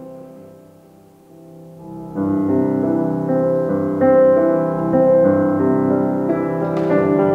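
Piano music: soft held notes, joined about two seconds in by fuller, louder chords that carry on steadily.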